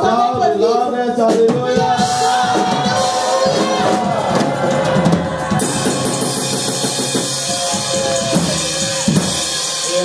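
Live church worship band playing, with a drum kit and cymbals over sustained held chords. Voices of the congregation are mixed in.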